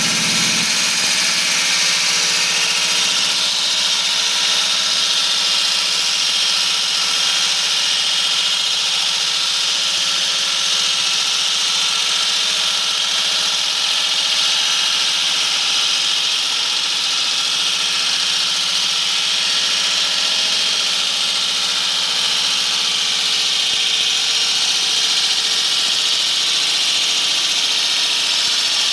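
Concrete saw cutting vertically into concrete: a steady, loud, high-pitched grinding whine that holds without a break.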